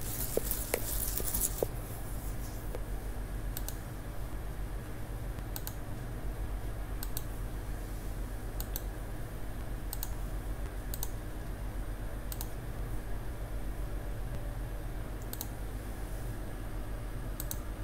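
Computer clicking: a dozen or so short, sharp clicks at irregular spacing, over a steady low hum.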